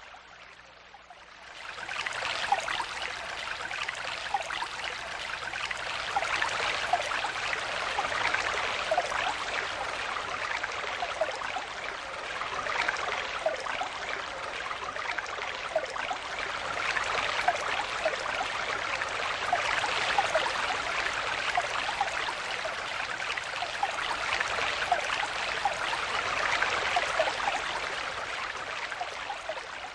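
Stream water flowing and babbling over stones, a steady rushing with small gurgles throughout. It is quieter for the first second or two, then suddenly louder and steady.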